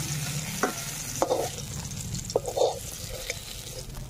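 Hot oil sizzling in a metal wok as fried brinjal strips are lifted out and drained with a slotted metal spatula, which clinks against the pan and plate a few times.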